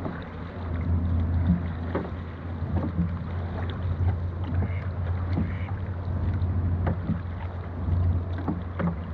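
Dragon boat crew paddling: the paddle strokes splash and knock in a steady rhythm over a constant low rumble.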